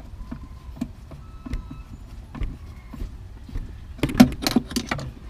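Hand-handling noises from wiring work: scattered small clicks and light knocks over a low steady rumble, with a burst of louder clicking and rustling about four seconds in.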